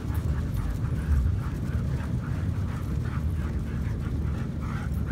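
Dog sled running over packed snow: a steady low rumble from the runners, over which the husky team's footfalls and breathing come in a steady rhythm of about three a second.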